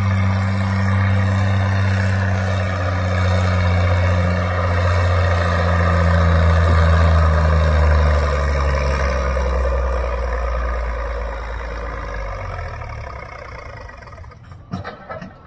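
Vintage farm tractor engine pulling a weight-transfer sled at full throttle. Its low steady note slowly drops in pitch as the engine lugs down under the growing load, then fades over the last few seconds.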